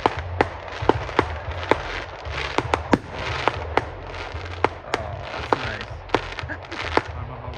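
Aerial fireworks display going off: a steady run of sharp bangs and cracks, irregular at about two a second, over a continuous crackling hiss.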